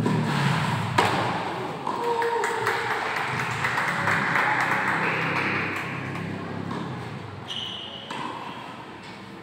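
A tennis ball struck sharply by a racket about a second in, ringing in a large indoor hall, followed by a few seconds of voices.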